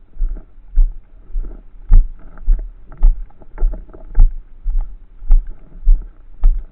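Regular heavy thumps, about two a second, with clicks and rattles on each one, heard through a Midland XTC 205 action camera's waterproof hard case as it is jolted in step, the way a body-worn camera picks up its wearer's strides.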